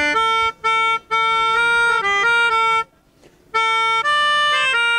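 Melodica played live, a simple melody of held reedy notes with short breaks between them and a pause of about half a second just after the middle.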